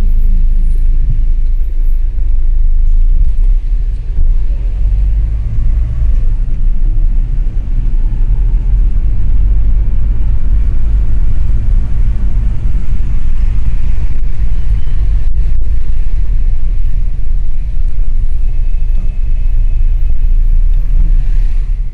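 Steady low rumble of a car driving in city traffic, heard from inside the moving car.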